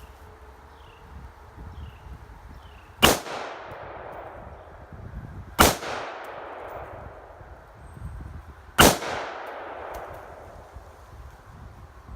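Three rifle shots from a .223/5.56 AR-15 fitted with its stock muzzle brake, spaced about two and a half to three seconds apart. Each crack is followed by a long fading echo.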